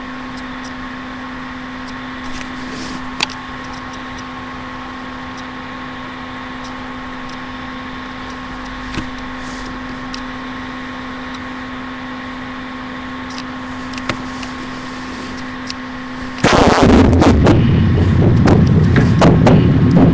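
Steady electrical hum from a laptop's built-in microphone, with a few faint clicks. About sixteen seconds in, a sudden loud, distorted noise overloads the microphone.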